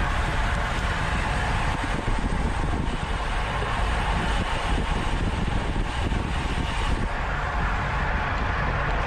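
Steady wind and road rush on the microphone of a bicycle-mounted camera riding at race speed, with heavy low buffeting.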